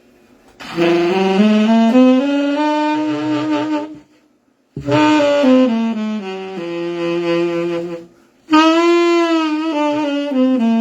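Saxophone playing three short melodic phrases ornamented with pitch bends, growling and flutter-tongue (frullato), the notes ending in vibrato. The notes scoop up into pitch and waver.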